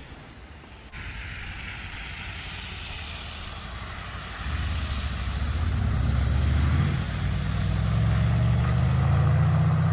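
Cars driving past on a wet, slush-covered road: a steady hiss of tyres through the slush, joined about four and a half seconds in by a louder low engine rumble as vehicles come close.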